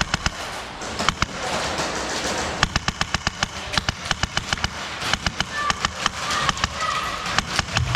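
Airsoft guns firing: runs of quick, sharp pops broken by short gaps, with single shots between the bursts.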